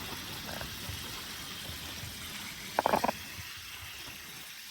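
Moose tenderloin sizzling in butter in a pan, a steady sizzle, with a quick cluster of clicks about three seconds in.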